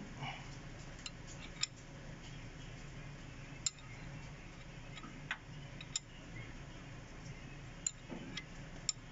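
Sharp metallic clicks and clinks of hand tools on the engine, about eight of them at irregular intervals over a low steady hum.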